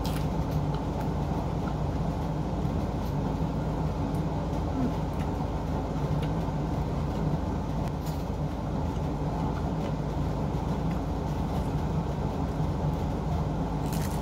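A steady low hum runs throughout. Faint crunches of lettuce being bitten and chewed come near the start and again near the end.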